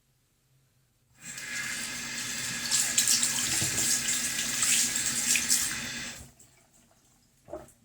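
Tap water running over soapy hands at a sink as the lather is rinsed off, starting about a second in and stopping about six seconds in. A brief short sound follows near the end.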